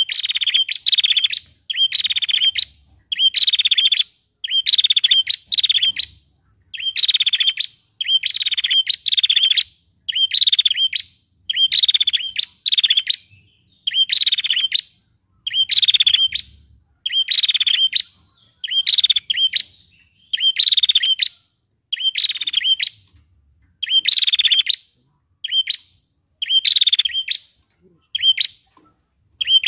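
Female prinia (prenjak) calling over and over: a rapid, buzzy trill repeated about once a second, each call under a second long. Toward the end the calls turn shorter.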